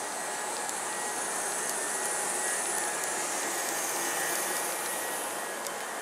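Kintetsu 2800/2430 series electric train pulling out past the platform: a steady running noise of motors and wheels with a faint high whine, a little louder in the middle.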